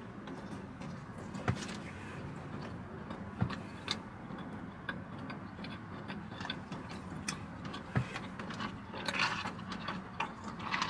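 Eating sounds close to the microphone: scattered small clicks and taps, with a brief rustle about nine seconds in, over a steady low hum.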